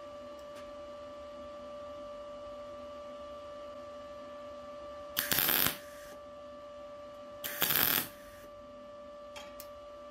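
Two short MIG welder tack welds, each a half-second burst of crackling arc, about five seconds in and again two seconds later, over a steady electrical hum.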